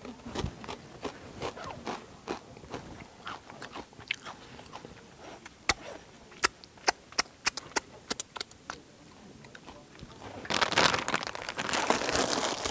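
A person loudly crunching and chewing Takis rolled tortilla chips: many sharp, separate crunches, with a louder, denser stretch of crunching near the end.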